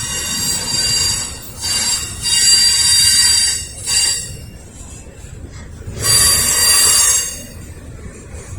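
Steel wheels of a Norfolk Southern intermodal freight train squealing as the cars roll through, a high-pitched squeal rising and fading in about five bursts over a low rumble.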